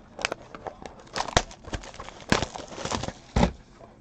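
Hands handling a small cardboard trading-card box: irregular taps, scrapes and crinkles, louder around the middle and again nearer the end.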